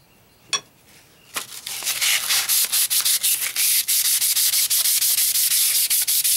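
320-grit sandpaper rubbing in quick back-and-forth strokes, several a second, starting about a second and a half in after a single click.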